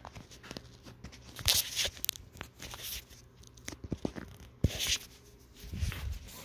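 Rustling and scraping handling noise from a handheld phone, with scattered sharp clicks and knocks, and two louder rustles about a second and a half in and near the end.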